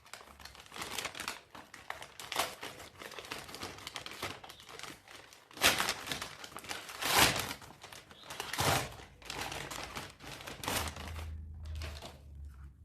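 Parcel packaging being crinkled and torn open by hand, an irregular rustling with three louder, sharper moments about six, seven and nine seconds in.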